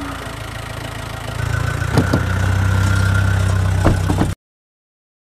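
A vehicle engine running with a steady low hum that gets louder about a second and a half in, with a few sharp knocks. The sound cuts off abruptly near the end.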